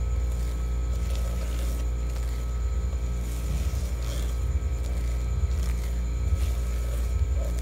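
A steady low hum, with faint scraping and squishing from a spatula folding and pressing macaron batter against the side of a glass bowl.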